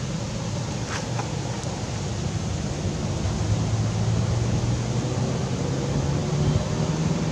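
Steady outdoor background noise: an even rushing hiss with a low hum that grows stronger about halfway through, and a faint brief high sound about a second in.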